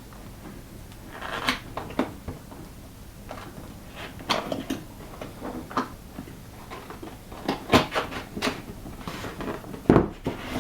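A cardboard keyboard box being opened and handled: irregular rustles, scrapes and knocks of the cardboard lid, flaps and packing. The sharpest knocks come about three quarters of the way in and near the end.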